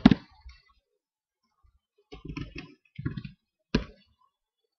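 Computer keyboard being typed on: a few keystrokes, a pause of about a second and a half, then quick runs of key clicks.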